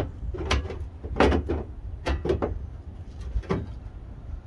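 A sheet-metal repair panel being handled, giving a string of short knocks and rattles over a steady low rumble.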